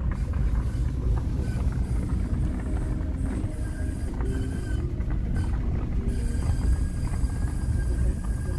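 Car brakes squeaking under light braking: a thin high squeal that comes and goes over the low rumble of the moving car. The owner thinks a change of brake pads will cure it.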